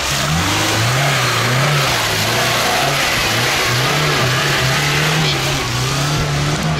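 Lada Niva's engine revving under load, its pitch rising and falling unevenly as the 4x4 climbs out of a muddy rut and drives off along a dirt track, with a steady hiss over it.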